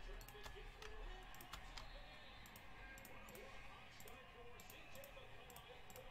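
Faint, irregular clicking of a computer mouse, a dozen or so sharp clicks, over a low steady hum.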